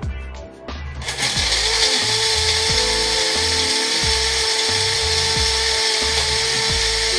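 Countertop blender switched on about a second in, its motor spinning up and then running at a steady whine, blending a thick, chunky tomato sauce.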